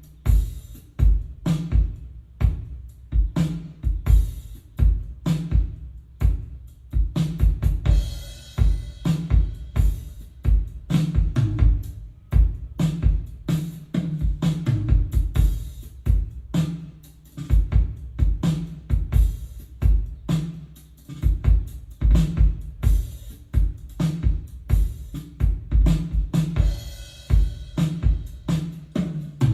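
Drum-heavy music played back through a Yamaha YSP-2700 sound projector: a drum kit with a steady pounding bass drum, snare hits and hi-hat, and cymbal crashes about eight seconds in and again near the end.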